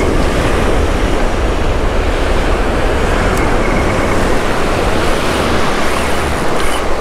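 Breaking surf and foamy wash rushing steadily, with a heavy low rumble of wind on the microphone.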